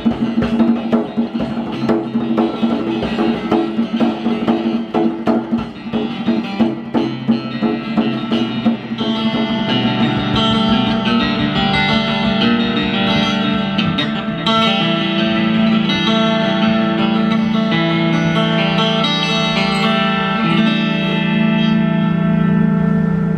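Instrumental music from an acoustic guitar and a djembe played by hand. For the first nine seconds or so there is dense hand-drumming under the guitar. After that the guitar carries on in long, ringing sustained notes.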